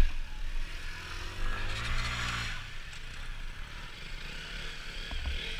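Small motorcycle or scooter engine revving once, its pitch rising and then falling about a second and a half in, over a steady low rumble of idling engines and wind.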